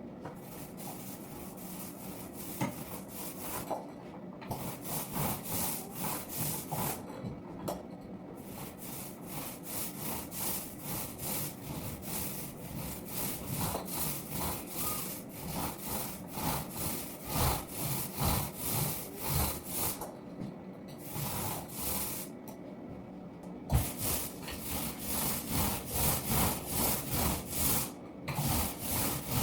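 Paint being applied to a wall in quick back-and-forth strokes, a regular rubbing swish about twice a second, broken by a few short pauses while a second coat goes on.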